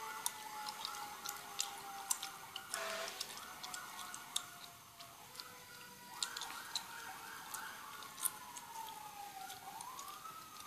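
Faint emergency-vehicle siren going by: a fast warbling yelp, a short break about five seconds in, more yelping, then a slow wail that falls and rises again near the end. Scattered faint clicks over it.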